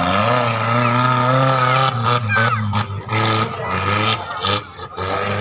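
Engine of a 1000cc-class off-road 4x4 revving hard at high, fairly steady revs, with brief dips in the throttle about two, three and nearly five seconds in.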